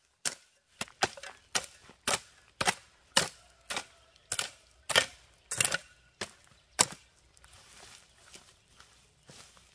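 A hoe chopping into soil and weeds with sharp strikes about twice a second, then scraping more softly as the cut weeds are dragged over the ground near the end.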